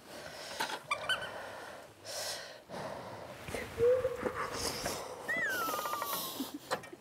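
Someone blowing on a spoonful of hot kimchi stew, with puffs of breath and slurping. A short falling whistle-like tone comes in the second half.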